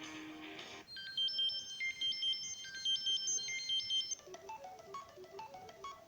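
Samsung Galaxy Tab 3 Lite ringtones playing. One tune cuts off just under a second in, and a bright, high chiming melody of quick notes follows. About four seconds in it gives way to a lower run of short, plucked-sounding notes.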